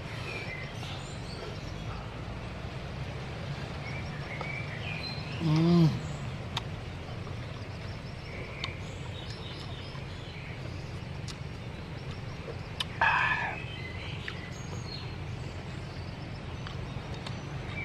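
Outdoor ambience: small birds chirping now and then over a steady low hum. About six seconds in comes a short low voiced sound that falls in pitch, and about thirteen seconds in a brief, louder call.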